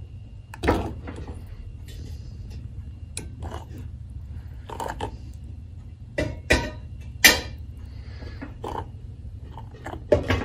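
Stainless steel mixing bowl on a counter, with scattered sharp clinks and knocks as liquid is poured into it, over a steady low hum; near the end a wire whisk starts clattering against the bowl.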